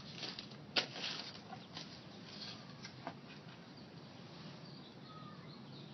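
Hands handling a thin plastic candy-kit tray: two light clicks, the first about a second in and a fainter one about three seconds in, over faint rustling.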